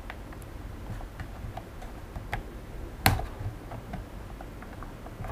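Scattered small clicks from the plastic shell of a Xiaomi Mi Drone 4K remote controller as it is pried open by hand, with one sharper click about three seconds in.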